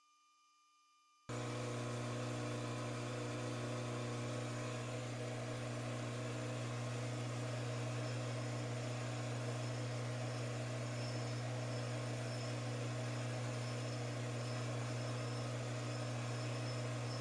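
Metal lathe running with the pulley spinning in it: a steady machine hum with a strong low drone, coming in suddenly about a second in, with a faint high whine that comes and goes in the second half.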